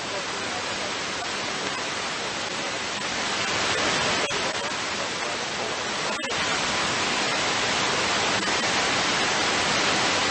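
Steady hiss of radio static on an air traffic control frequency between transmissions, with two brief dropouts about four and six seconds in.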